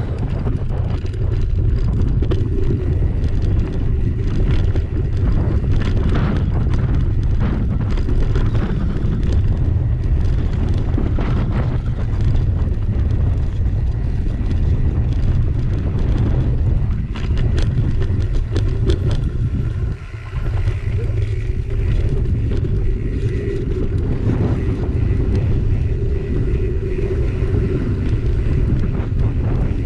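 Wind rumbling on the microphone of a camera on a moving mountain bike, with tyre noise and short rattling clicks from the bike over a rough dirt track.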